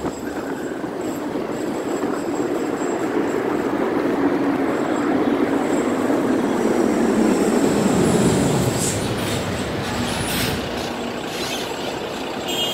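Road traffic passing a stopped motorcycle at a city intersection: a vehicle's engine and tyre noise swells and peaks about eight seconds in, then eases, with several short high squeaks just after.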